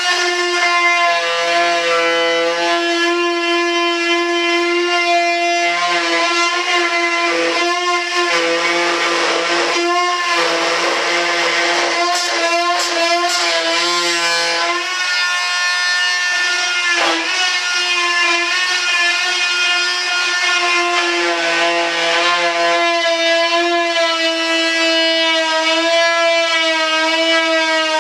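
A high-speed rotary cutting tool running with a steady high whine, its tone wavering as it cuts through the cured fiberglass-resin edge of a mold during trimming.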